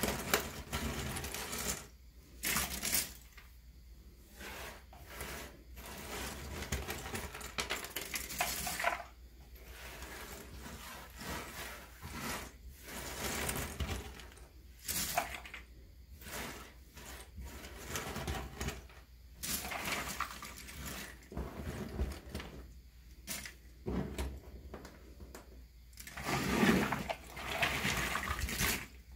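Cardboard Ravensburger jigsaw puzzle pieces being scooped up by hand and dropped into their box, clattering in irregular bursts. Near the end the loudest stretch, a longer rattle, as the hands stir the loose pieces inside the box.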